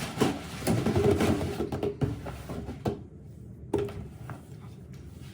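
Cardboard box and packaging of a pressure cooker being opened by hand: a few seconds of rustling, scraping and sharp clicks, then quieter, with a couple of single knocks near the end.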